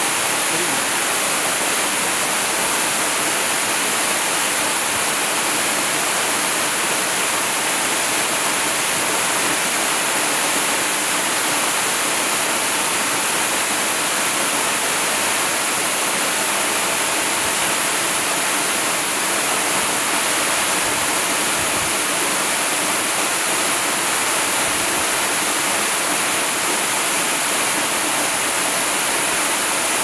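Waterfall pouring onto rocks: a steady, unbroken rush of falling water that does not change in level.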